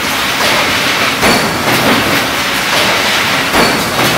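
Car body-panel stamping press line running: a continuous loud machine din with repeated metallic clanks, roughly every half second to a second.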